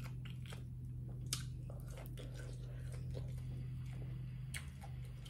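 Close-miked chewing with scattered soft mouth clicks, over a steady low hum.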